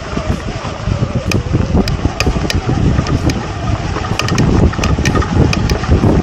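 Transition Repeater e-mountain bike riding down a dry dirt trail: tyre rumble and wind buffeting the camera microphone, louder from about a second in, with scattered sharp clicks and rattles from the bike.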